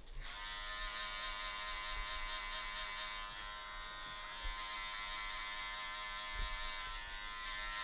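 Electric hair clippers running with a steady high-pitched buzz, starting suddenly.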